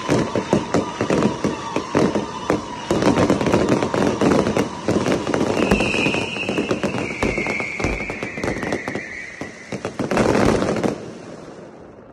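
Low-level aerial fireworks crackling densely: a rapid stream of sharp pops and cracks, with a whistling tone that slides slowly down in pitch in the middle. A last loud flurry comes near the end, then the crackling stops and dies away.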